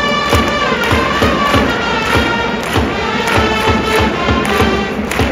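Japanese baseball cheering-section trumpets playing a player's cheer song in unison, over a steady drum beat of about three strokes a second.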